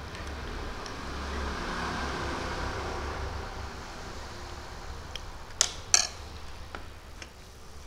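A metal spoon clinks twice against the dish, about half a second apart, over a steady low hum.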